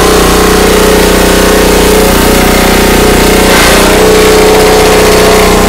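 Pressure washer running steadily, its motor droning under the hiss of the water jet, with a brief dip in pitch a little past halfway.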